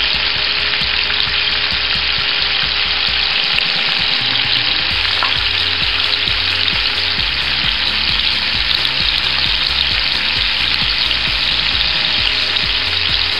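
Sliced onion, green bell pepper and carrots frying in an electric skillet: a steady sizzle.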